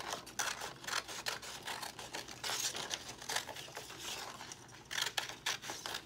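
Scissors cutting through a sheet of construction paper, with the paper rustling as it is turned and handled: a run of irregular snips and crinkles.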